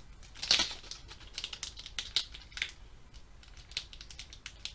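Foil wrapper of a Pokémon trading-card booster pack crinkling and crackling in the fingers as it is handled and pinched at the top to be opened, with a sharp crackle about half a second in and quicker small crackles after.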